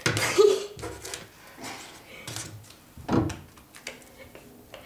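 Playing cards being flicked and slapped down onto a small tabletop in a card game of Slaps: a few sharp slaps and taps, the loudest right at the start.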